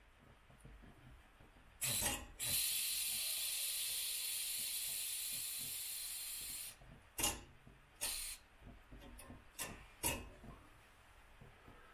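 Wilesco D20 toy steam engine's boiler venting steam by hand to release its pressure: a short puff, then a steady hiss for about four seconds that slowly weakens, then several short puffs.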